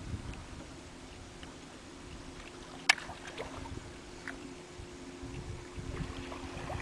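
Wind buffeting the microphone with faint water sounds, over a steady low hum. A single sharp click about three seconds in.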